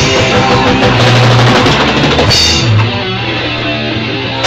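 A live band playing loud rock music, with the drum kit and bass drum to the fore over guitar.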